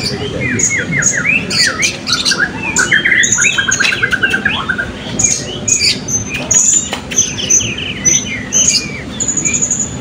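Several caged blue-crowned hanging parrots (serindit) calling together: a busy mix of sharp high chirps and short falling notes, with a rapid trill about three seconds in.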